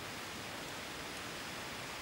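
Steady, even background hiss of the forest surroundings, with no distinct sounds standing out.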